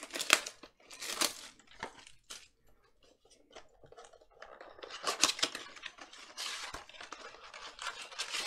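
Cardboard trading-card blaster box being torn open by hand: sharp rips and rustling of the card stock, loudest about a second in and again about five seconds in, with a quieter lull between.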